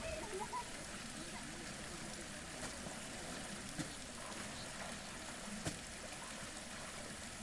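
Faint water trickling and lapping, with two soft knocks, the second near the end.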